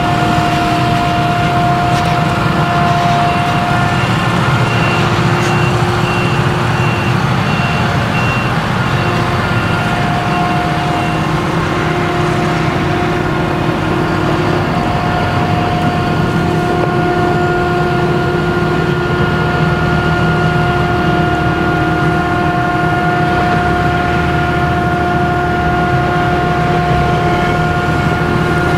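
Claas Jaguar 970 self-propelled forage harvester with its MAN V8 engine running steadily under load while chopping sorghum, several steady whining tones over a deep engine rumble.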